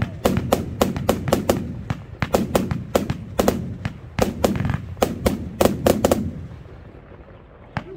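Lesli 'Black Caiman' consumer compound fireworks cake firing in rapid succession: a quick run of shots with bursting stars, about four or five a second, pausing for roughly a second and a half near the end.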